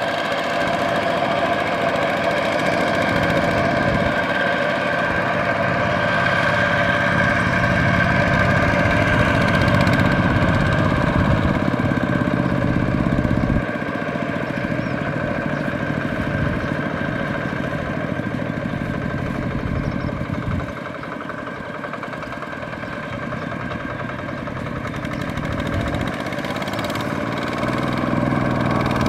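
Kubota ZT120 single-cylinder diesel engine of a two-wheel walking tractor running steadily under load, hauling a trailer of rice sacks through mud. It gets quieter about halfway through and again a few seconds later, then louder again near the end.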